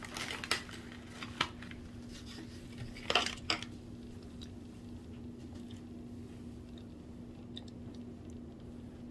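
Hard plastic toy-car packaging being handled and opened: a run of sharp plastic clicks and crackles, with a brief cluster about three seconds in, then only a steady low hum.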